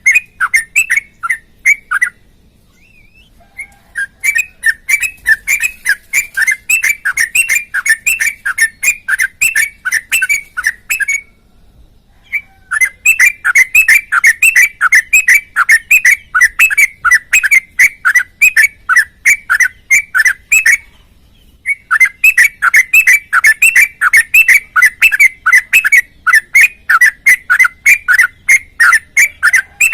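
Yellow-vented bulbul (trucukan) singing in long runs of quick, repeated chirping notes, about three to four a second, broken by three short pauses. This is the full, continuous song that keepers call gacor.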